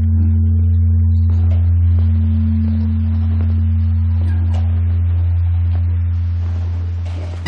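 Large bronze Korean Buddhist temple bell (beomjong) humming on after a strike: a deep, steady hum with a higher overtone above it, slowly dying away near the end.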